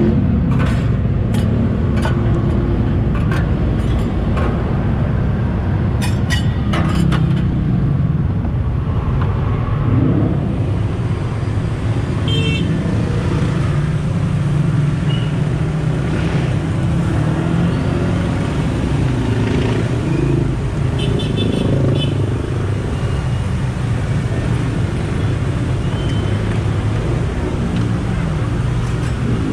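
Steady street traffic rumble from passing cars and motorcycles. During the first several seconds, metal spatulas clink sharply against a steel flat-top griddle as diced onions are chopped and scraped.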